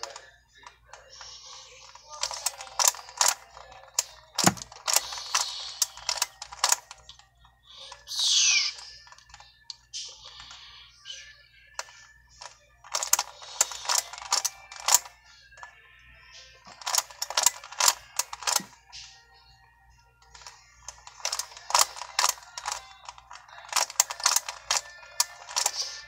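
Plastic Skewb Xtreme puzzle being turned fast by hand during a solve: runs of rapid clicking and clacking from its pieces, broken by short pauses, with a brief high squeak about eight seconds in.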